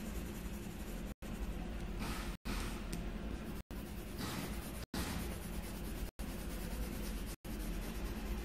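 Coloured pencil scratching on paper as it shades, in short bursts of strokes, over a steady low hum. The whole sound cuts out for an instant about every second and a quarter.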